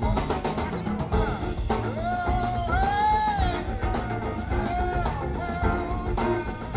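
Rock and roll music with guitar, drums and a singing voice, with a steady beat.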